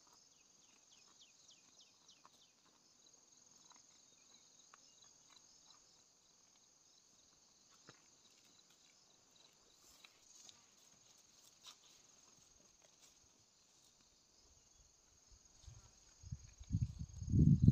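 Insects shrilling steadily, with rapid chirp trains in the first few seconds and scattered faint clicks. Near the end a loud, low rumbling noise comes in close and takes over.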